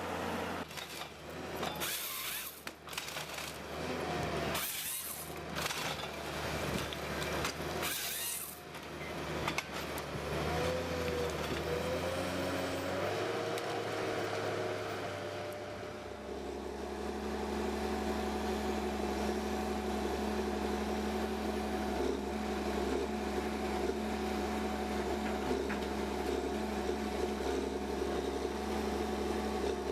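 Machinery at work: irregular clatter and sharp noises for the first third, then about halfway through a machine's engine settles into steady running.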